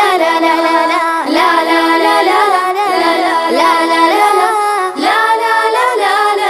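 A child's voice singing a wordless 'la la la' refrain of a song, with musical backing.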